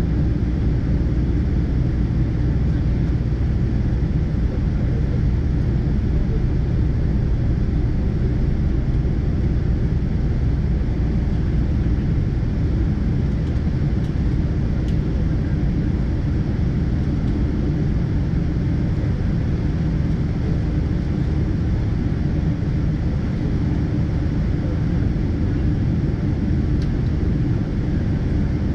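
Steady low rumble of a Boeing 777-200ER's engines heard inside the passenger cabin, holding level without spooling up.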